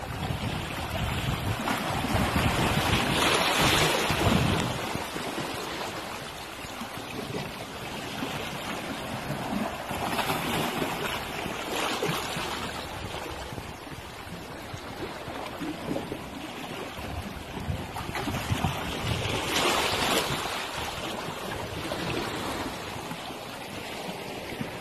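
Small sea waves washing against a rocky shoreline, the wash swelling and fading every eight seconds or so, with wind buffeting the microphone.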